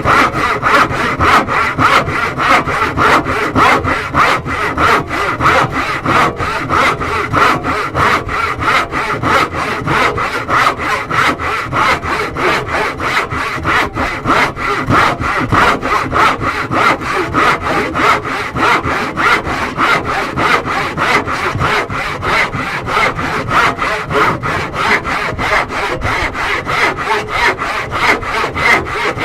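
Handsaw cutting wood in steady, even back-and-forth strokes, about three a second.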